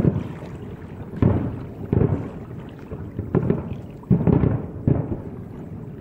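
Distant aerial firework shells bursting one after another, about seven sudden low booms in six seconds. Each boom is followed by a rolling rumble that fades.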